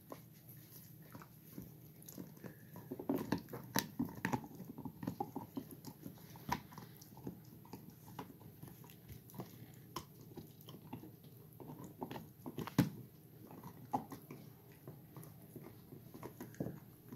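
Golden retriever–collie mix puppies gnawing hard chew bones: irregular clicks and knocks of teeth on the bones with wet chewing, in a busy run about three to five seconds in and one loud knock near the end.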